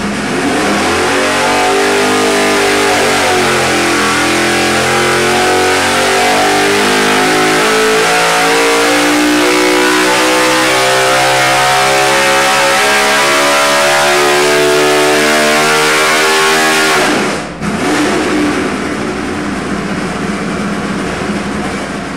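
A 358 cubic inch small-block Chevrolet V8 race engine is held under throttle, its revs climbing steadily for about fifteen seconds towards 9,600 rpm. About three-quarters of the way through the throttle snaps shut, and the engine drops abruptly back to running at around 3,000 rpm.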